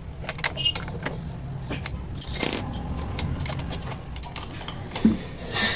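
Scattered metallic clinks and taps from hands and a tool working on a motorcycle's rear brake master cylinder and pedal linkage, over a steady low hum.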